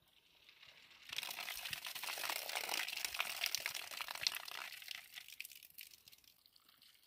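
Water poured from a plastic jug into a metal bowl of cut potato sticks, splashing with a crackly hiss as hands rinse the potatoes. The pouring starts about a second in and fades away over the last two seconds.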